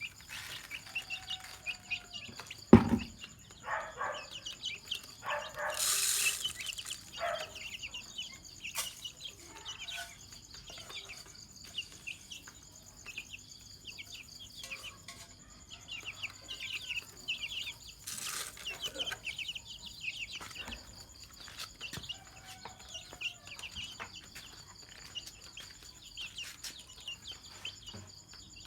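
A group of domestic chicks peeping continuously in short, high-pitched chirps. A single sharp knock comes about three seconds in, and brief rustling bursts come twice, around a fifth and two thirds of the way through.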